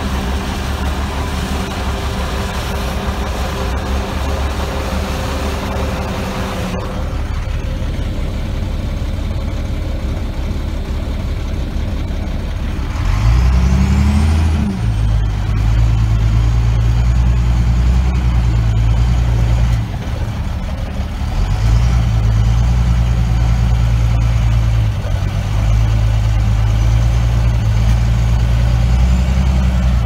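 Diesel engines of a John Deere self-propelled forage harvester and a silage truck running steadily while chopping and loading corn silage. From about 13 seconds in a heavy truck engine heard close up becomes the loudest sound: it rises in pitch once, then runs at a steady loud drone with two brief dips.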